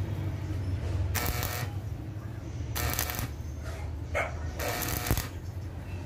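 Stick (arc) welding on a broken bolt stub in an aluminium engine cylinder head, building up weld so the bolt can be pulled out. The arc crackles in three short bursts about a second and a half apart, over a steady low hum.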